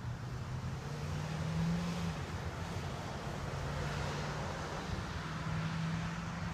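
A steady low mechanical hum, its pitch lines swelling and fading, over a faint even background of outdoor noise.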